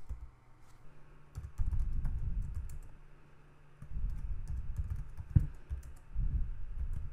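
Typing on a computer keyboard: quick runs of keystrokes in two stretches with a short pause between.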